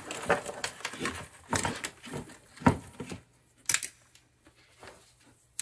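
Light clicks and clatter of multimeter test leads and metal alligator clips being handled and set down on a cutting mat: a string of irregular taps that thins out after about three seconds.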